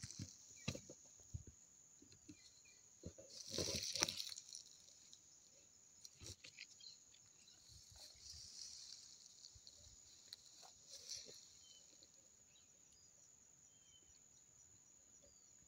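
Faint steady high-pitched insect buzz, with scattered rustles and footfalls in vegetation and a louder rustle of brush about four seconds in.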